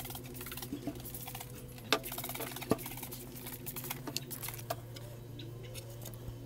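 Trigger spray bottle spritzing water onto a live-edge maple board, a scatter of short hissing squirts and trigger clicks, the sharpest about two seconds in and again just under three; the wood is being wetted to raise the grain before it is sanded back. A steady low hum runs underneath.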